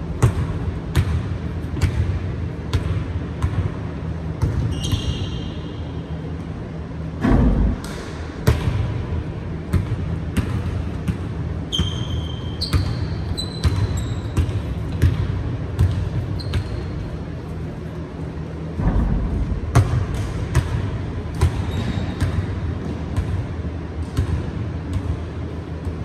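Basketball being dribbled on a hardwood gym floor, steady bounces a little over one a second echoing in the hall, over a steady low hum. A few short high sneaker squeaks, and two dull low thumps, one about seven seconds in and one past the middle.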